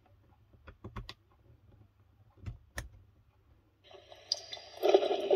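A few sharp clicks in the first three seconds, then a recorded Halloween sound effect starts playing from the box's mini 5 W speaker about four seconds in and quickly grows loud.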